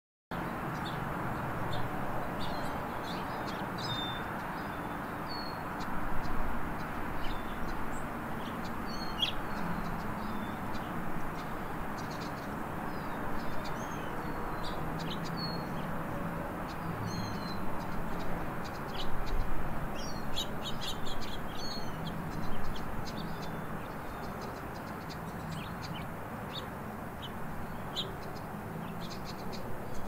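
Lesser goldfinch singing: short high chirps and slurred twittering notes come irregularly, thickest a little past the middle. They sit over a steady low background rumble.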